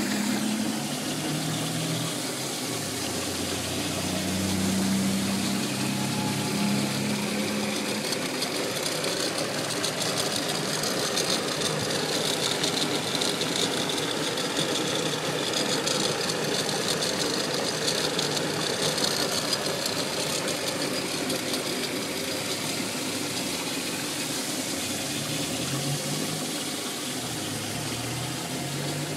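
Highland Park A50 lapidary cabbing machine running steadily: its electric motor drives the grinding wheels through a belt, with a low hum under a steady hiss, and water spraying on the wheels.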